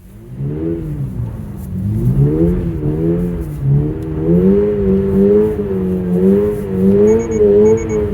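Toyota GR86's 2.4-litre flat-four engine revving through a drift on snow, the revs swinging up and down with the throttle, then holding high and wavering. A short high beep sounds twice near the end.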